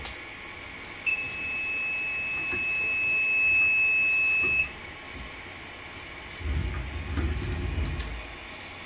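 One long electronic beep from the Artillery Sidewinder X2 3D printer's buzzer: a single steady high tone held for about three and a half seconds, cutting off sharply. Near the end, low rustling and knocks as hands work filament at the extruder on the print head.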